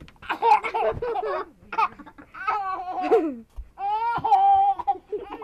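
A toddler laughing in about four high-pitched bursts of giggles and squeals, with short breaks between them.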